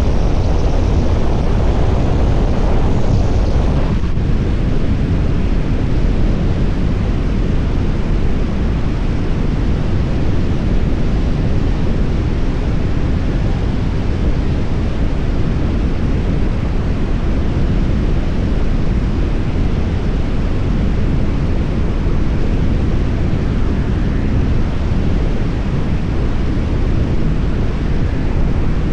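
Heavy wind buffeting on the camera's microphone, held out of a car's sunroof at highway speed, with the car's road noise underneath: a loud, steady rumble.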